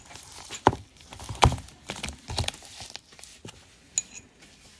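Metal parts from a worn-out T-90 transmission bearing clinking and knocking together as they are handled, about five separate sharp clinks.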